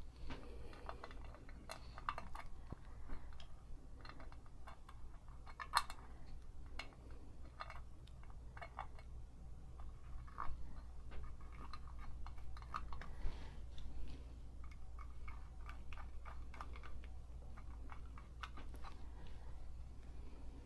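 Scattered light clicks and taps of small metal parts and a screwdriver as the top plate of a Singer 223 sewing machine is screwed back on, with two sharper clicks about six and ten seconds in.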